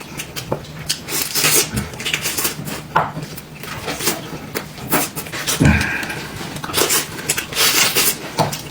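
Close-up eating sounds: chewing and lip-smacking with many short clicks, mixed with chopsticks and bowls knocking against dishes.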